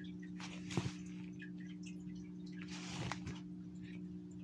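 Steady low electrical hum, with two short rustles each ending in a soft knock, about a second in and about three seconds in: the toy doll being handled close to the microphone.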